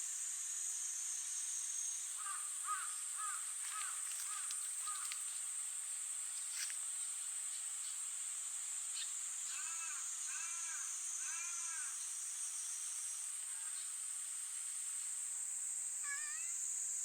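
A bird calling in two runs of repeated short, arched calls, one about two seconds in and another about ten seconds in, over a steady high-pitched hiss.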